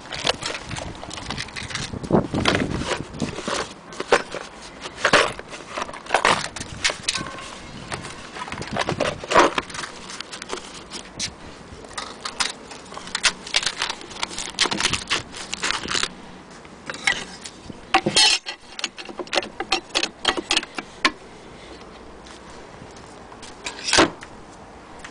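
Irregular clicks, knocks and rustles of hands handling a sewing machine's wooden case, electric cords and papers, with a sharp knock near the end.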